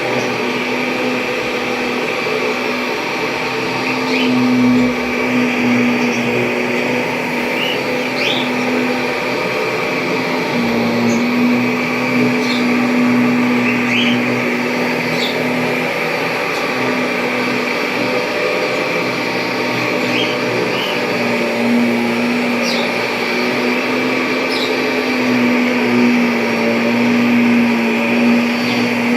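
1997 Kirby G5 upright vacuum cleaner running steadily, its motor holding a steady hum with a faint whine above it.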